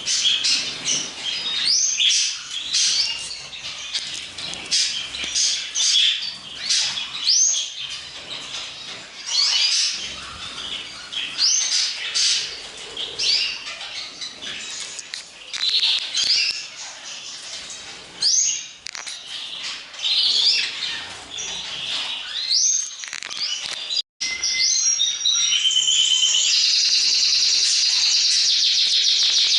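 Many small caged birds chirping and calling together in short, sharp, overlapping chirps and rising notes. About 24 seconds in, the sound cuts briefly and a denser, steadier chorus of chirping takes over.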